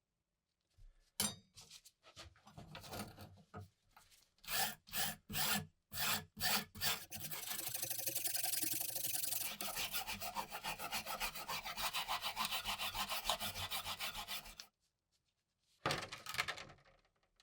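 Hand abrading on a rusty knife: a few separate rubbing strokes, then a run of fast, even back-and-forth scraping strokes that stops suddenly, with one short burst of strokes near the end.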